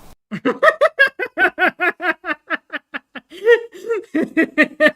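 A person laughing hard: a long run of rapid, loud ha-ha pulses, about five a second, with a couple of longer drawn-out ones partway through.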